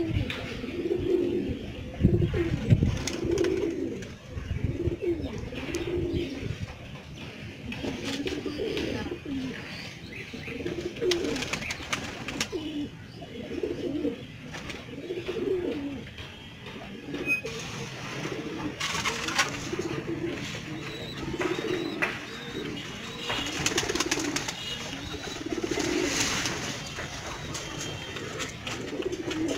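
A flock of domestic pigeons cooing over and over, with bursts of wing-flapping in the second half. A brief low thump about two seconds in is the loudest moment.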